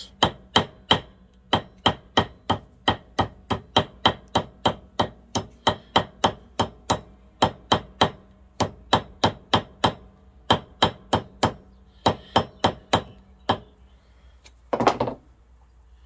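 Hammer tapping a bronze washer over a metal form, about three light ringing taps a second, slowly bending its edge over. Near the end the tapping stops and there is one short, louder noise.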